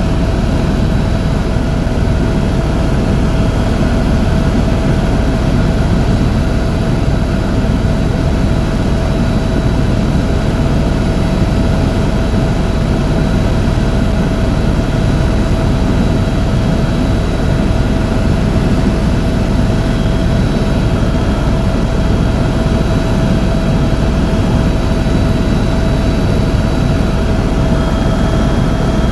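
Helicopter in flight, its engine and rotor running at a steady drone with a constant whine over it.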